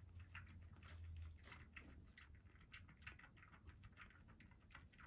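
Kitten suckling milk from a nursing bottle: faint, rapid, irregular wet clicks and smacks of its mouth working the teat as it drinks fast.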